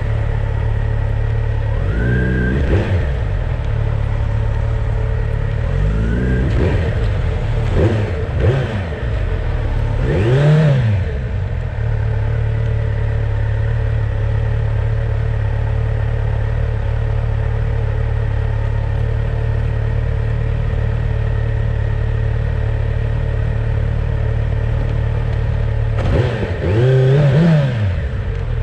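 Motorcycle engine running while riding, a steady low drone with several rises and falls in revs as it accelerates and eases off, clustered in the first eleven seconds and again near the end.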